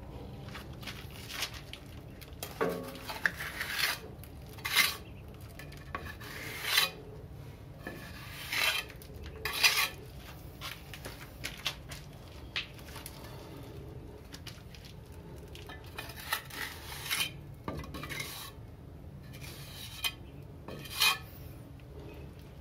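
Plastering trowel scraping and smearing wet cement mortar around a plastic pipe where it passes through a wall, in short irregular strokes every second or two, sealing the gap around the pipe.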